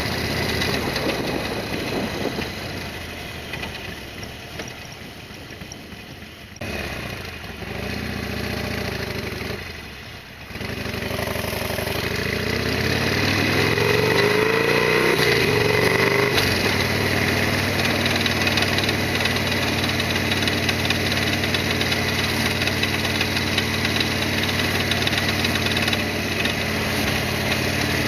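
Harley-Davidson Sportster XL1200R air-cooled V-twin running, easing off and going quieter for several seconds. About ten seconds in it pulls away with a rising pitch that climbs for about five seconds, then settles into a louder steady run.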